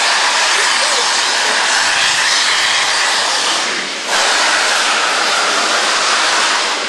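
Robert Dollar No. 3 steam locomotive venting steam in a loud, steady hiss at track level, which dips about four seconds in and then comes back abruptly at full strength.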